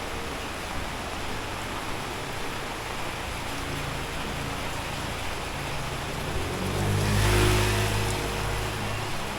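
A motor vehicle passing on a wet street: its engine and tyre noise swell about seven seconds in and then fade. Under it, a steady hiss of rain and wet road.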